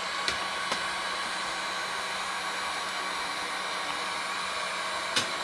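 Electric heat gun blowing steadily on the back of a circuit board, melting the solder holding the chips. A few sharp clicks sound over it, near the start and near the end.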